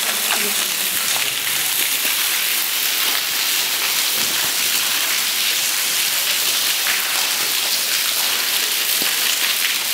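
Water dripping and trickling from the roof of a wet railway tunnel: a steady rain-like patter, with a few single drips standing out.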